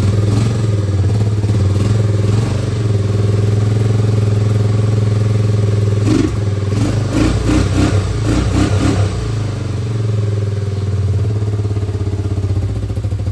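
Honda ATC 250SX three-wheeler's four-stroke single-cylinder engine running just after being kick-started, on a freshly cleaned carburettor and without its air box. It runs steadily, and for a few seconds around the middle the engine speed rises and falls in quick throttle blips.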